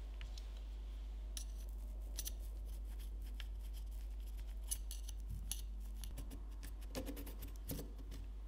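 Knife blade cutting through a cocoa sponge cake along a stainless steel cake ring, with a run of short crisp ticks and scrapes as the blade works around the ring against the metal.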